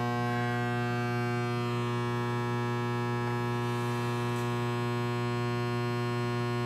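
Steady electrical mains hum, a low buzz with a long stack of overtones, holding level without change.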